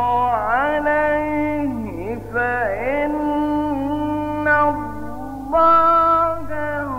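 A male Quran reciter chanting in the melodic mujawwad style, holding long notes that bend and turn through ornamented glides. A steady low hum runs underneath.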